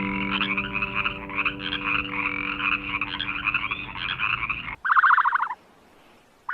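A chorus of frogs calling over one another, cut off suddenly; then a single short, pulsed croak.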